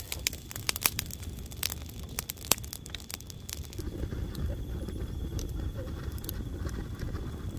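Dry twigs and leaves crackling with a rapid run of sharp snaps, which thins out about three and a half seconds in and gives way to a duller, lower rustle.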